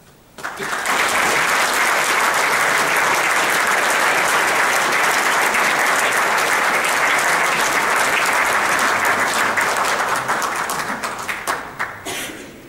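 Audience applauding: the clapping starts suddenly about half a second in, holds steady, then thins to a few scattered last claps and stops near the end.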